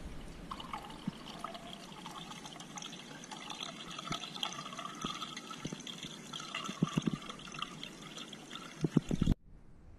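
Water gurgling and trickling, with a few soft knocks near the end.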